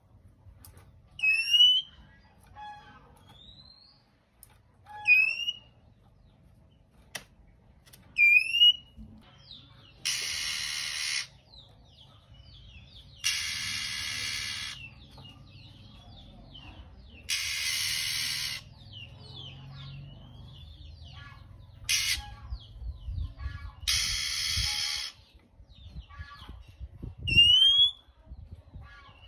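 Male oriental magpie-robin calling: harsh hissing rasps about a second long, five times, between sharp upward-sweeping whistles and softer chirps.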